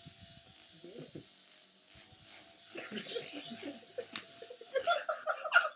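Toy RC helicopter's small electric motor and rotors whining steadily, stopping a little before the end, with laughter near the end.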